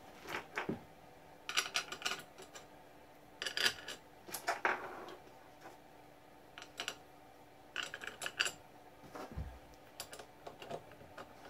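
Small metal T-nuts and bolts clinking and scraping as they are handled and pushed into the mill table's T-slots, in several short clusters of clinks, with a single dull thump a little after nine seconds.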